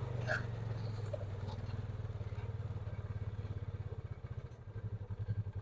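The Ranger's engine running steadily, then settling in the second half into a slower, pulsing beat as it drops toward idle, with a few faint clicks and rattles.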